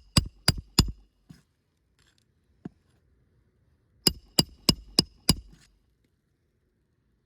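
Roofing hammer striking a steel roof snake to drive a shingle nail, three quick ringing blows, a pause, then five more at about three a second.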